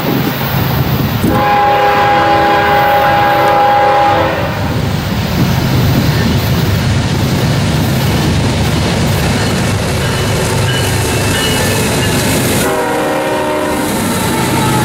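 Diesel freight locomotives passing at speed, with their engines running and wheels rumbling on the rails. The lead locomotive's air horn sounds a long chord for the grade crossing about a second in, and another shorter blast near the end.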